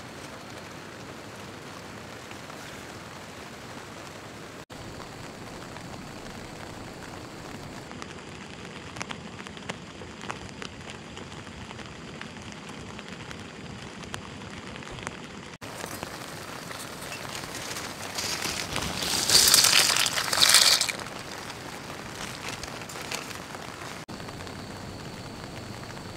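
Steady rain on a tent fly mixed with the hiss of a small canister gas stove burning under a pot of water. About two-thirds of the way in, a louder rushing noise swells for a couple of seconds.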